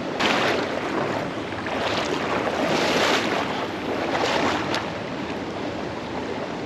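Rushing river water mixed with wind noise on the microphone, swelling and easing several times.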